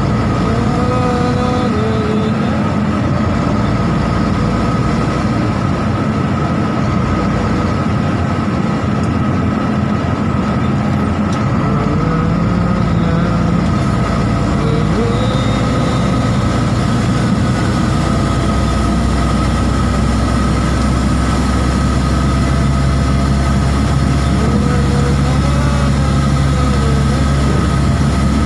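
Tractor-trailer truck on the road: steady engine and road noise, its low rumble growing stronger about two-thirds of the way in.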